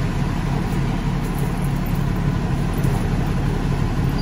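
Kenworth truck's engine running steadily, a low even rumble heard from inside the cab.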